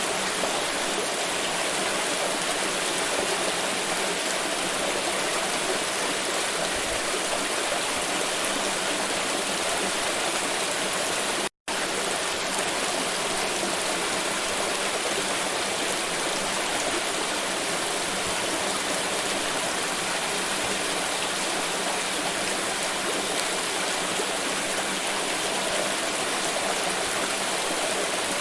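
Pouring water running in a steady, even rush. It cuts out completely for a split second about eleven seconds in.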